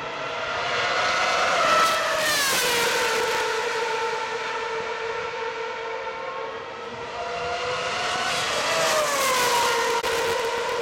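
2013 Formula 1 cars' 2.4-litre V8 engines at high revs as they pass the grandstand. The high-pitched engine note falls in pitch as a car goes by about two seconds in, and again as a second pass comes near the end.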